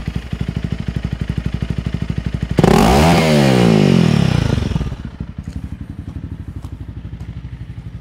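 Honda CRF300L Rally's single-cylinder four-stroke engine idling through an aftermarket MotoX exhaust with the baffle removed. About two and a half seconds in it is snapped open to high revs, then falls back to idle over about two seconds. The rev peak reads 99.5 dB at 2 m.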